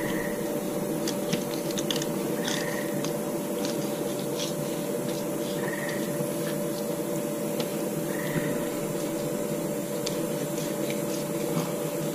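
Fillet knife slicing down a king salmon's back to free a fillet, the blade making small crunching and clicking sounds through flesh and rib bones, with a few brief squeaks. A steady low hum runs underneath.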